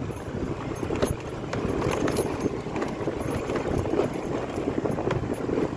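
Honda scooter ridden over a bumpy dirt track: the small engine running under a steady rumble, with frequent irregular knocks and rattles from the body jolting over the rough ground.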